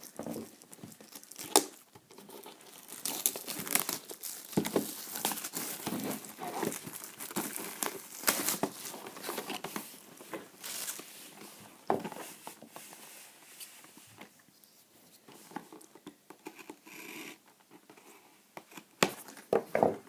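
Trading-card packs being torn open, with crinkling wrappers and rustling card handling, irregular, with a few sharp snaps.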